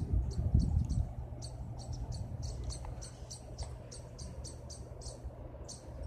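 Rapid high-pitched chirping, short calls repeating about four times a second, over a low steady rumble.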